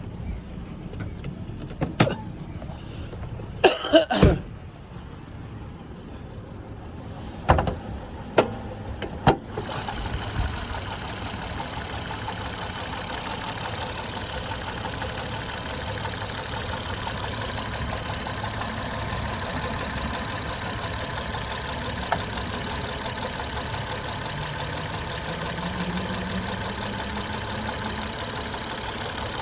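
2011 Acura TL's 3.7-litre V6 idling at operating temperature, with a few sharp knocks in the first ten seconds. After that the engine runs steadily and louder. The owner is chasing a tapping/knocking noise that is less noticeable once the engine is warm.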